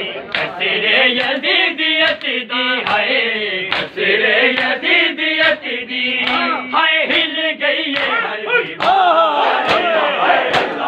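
A group of men chanting a Punjabi noha (Muharram lament) in unison, with sharp slaps a little faster than once a second keeping time: matam beating. Near the end the chant gives way to loud crowd shouting.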